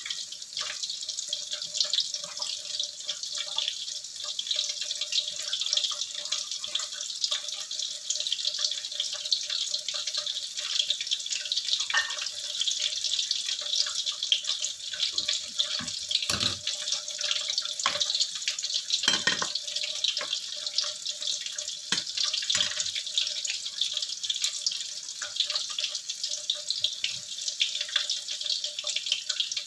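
Cempedak fritters deep-frying in hot oil in a wok: a steady sizzle with dense crackling as they are left to crisp, and a few louder pops. A faint steady hum sits underneath.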